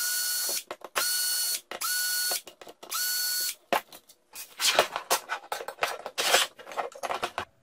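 Ridgid cordless drill/driver running in four short bursts of about half a second each, spinning up with a rising whine each time as it backs the screws out of an 80 V Greenworks battery case. In the second half comes a run of quick plastic clicks and rattles as the loosened screws are picked out and the case is handled.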